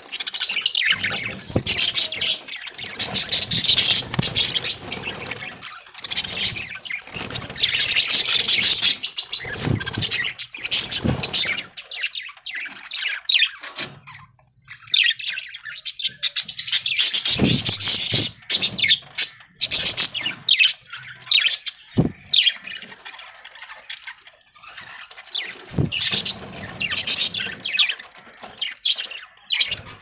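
A flock of budgerigars chattering and chirping, in loud bursts with short lulls between them. A couple of sharp taps come in the second half.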